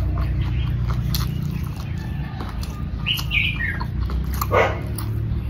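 A neighbour's dog whining and barking: two short whines about three seconds in and a sharp bark a little over a second later, over a steady low hum.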